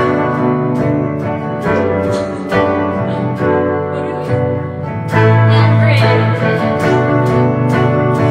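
A guitar strummed in a steady rhythm with a woman singing along into a microphone.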